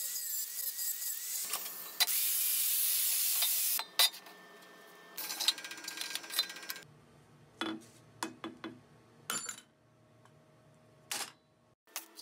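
Angle grinder grinding sheet steel, in loud harsh stretches over roughly the first seven seconds, loudest a couple of seconds in. After that a drill press motor runs with a low hum while a bit drills into the steel box, with several sharp metallic clicks and knocks.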